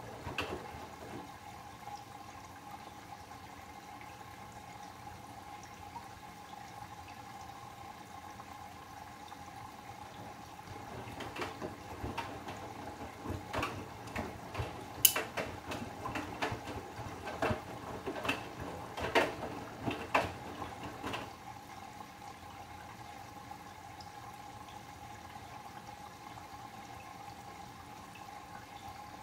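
Bosch Serie 8 front-loading washing machine during a wash: a steady hum while the drum rests, then from about ten seconds in the drum turns for roughly ten seconds, laundry sloshing and splashing in plenty of water with soft thuds, before stopping again.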